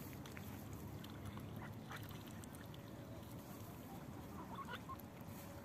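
Mallards giving a few short, soft calls now and then, several together shortly before the end, over a low steady background.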